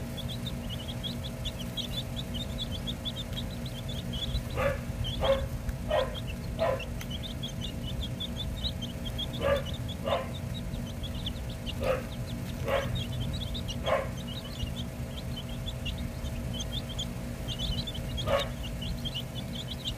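Baby chicks peeping continuously in quick, high chirps, while a dog barks about ten times in short runs starting about four seconds in; the barks are the loudest sounds.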